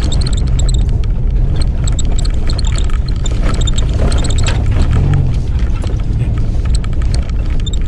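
Off-road 4x4's engine running under load, heard from inside the cabin as it drives over rough grass, with frequent knocks and rattles from the body over the bumps.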